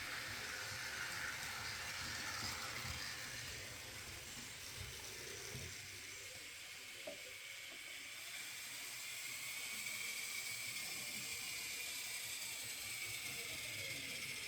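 Model steam locomotive running around a model railway layout: the small electric motor and wheels on the track give a steady whirring hiss with a high whine that drifts slowly in pitch.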